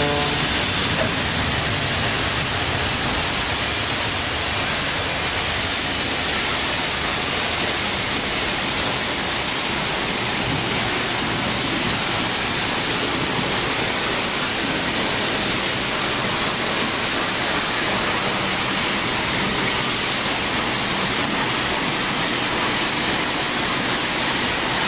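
CNC sheet cutter running while it cuts a plastic plate, giving a loud, steady hiss. A whining tone from the machine dies out in the first second.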